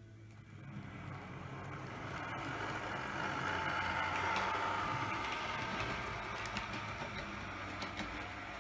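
Model diesel multiple unit's motor and wheels running on the track as it pulls away from the platform and passes close by. The sound builds over the first couple of seconds, is loudest around the middle, then eases to a steady rumble.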